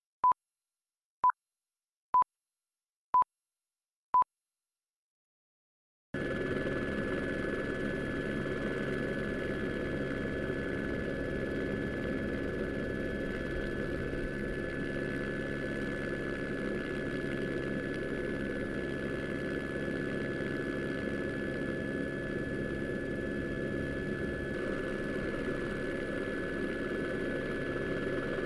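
Five short, high beeps about a second apart, the countdown tones at the head of a broadcast feed, then silence. About six seconds in, a steady engine drone starts and holds an unchanging pitch.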